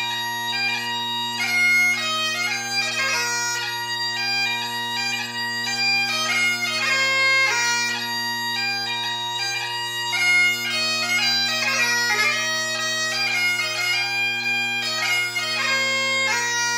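Great Highland bagpipe played solo: steady drones under a fast chanter melody with quick grace-note ornaments, playing a reel.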